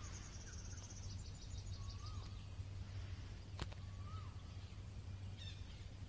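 Outdoor wildlife ambience: a bird gives a short rising-and-falling note about every two seconds, and an insect makes a fast, high pulsing trill for the first second or so. A steady low hum runs underneath, and there is one sharp click about halfway through.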